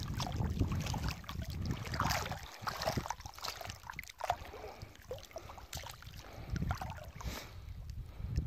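River water splashing and dripping as a cast net's rope is hauled in by hand, in scattered small splashes. There is a low wind rumble on the microphone, heaviest near the start.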